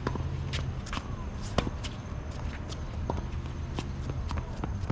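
Tennis rally on a hard court: sharp pops of rackets striking the ball, the loudest about one and a half seconds in, mixed with quick footsteps and shoe scuffs, over a steady low rumble.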